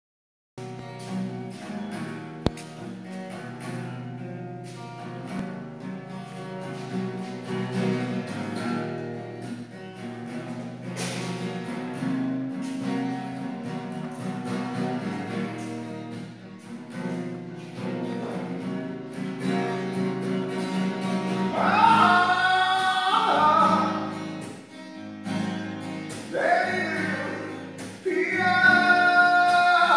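Acoustic guitar strummed and picked, with a man singing along; the singing comes through loudest toward the end.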